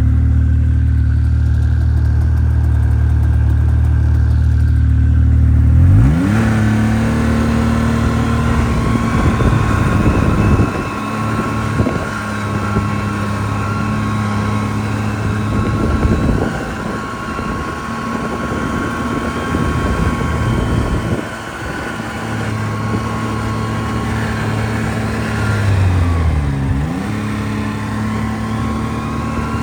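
Snowmobile engine idling steadily, then revving up quickly about six seconds in as the sled pulls away, and running on at a steady higher speed with small changes in pitch. Near the end the throttle eases off briefly and comes back on.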